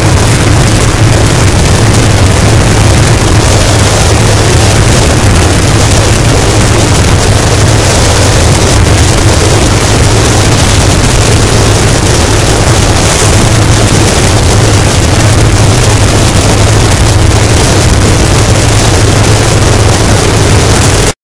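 Harsh noise wall: a loud, unchanging mass of distorted static, with a heavy low hum beneath. It cuts off suddenly at the very end.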